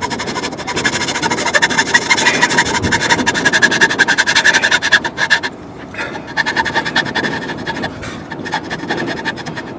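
Hand saw cutting the teeth of a small plywood ratchet wheel in a series of quick back-and-forth strokes. There is a brief pause just after halfway, then the sawing resumes somewhat more quietly.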